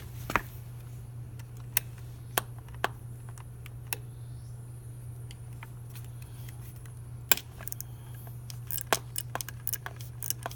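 Scattered sharp metal clicks and taps of a socket wrench working a small 8mm bolt loose, with a quicker run of clicks near the end, over a steady low hum.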